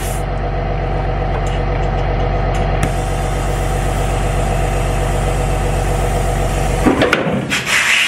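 A motor runs with a steady drone, then cuts out about seven seconds in after a few sharp clicks, followed by a rush of hissing air near the end.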